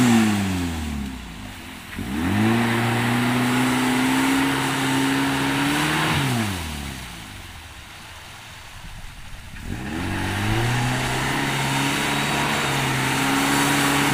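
Suzuki 4x4's engine revving hard in two pushes up a muddy rut, with spinning tyres churning mud. The revs drop just after the start, climb and hold high for about four seconds, fall back to a quieter lull, then climb and hold again before dropping near the end.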